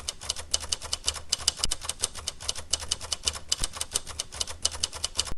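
Rapid typing clicks, about eight to ten keystrokes a second, over a low steady hum; the run stops abruptly at the end.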